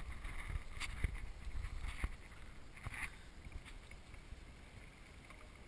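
Water splashing and lapping against a Hobie kayak's hull about once a second, with a couple of light knocks, over low wind rumble on the microphone; the splashing fades in the second half.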